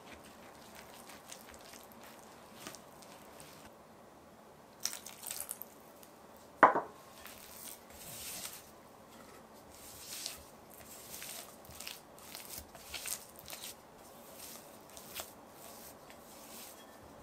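Silicone spatula stirring flour and water into a sticky dough in a glass bowl, with soft intermittent scraping. A single sharp knock against the bowl, the loudest sound, comes a little over a third of the way in.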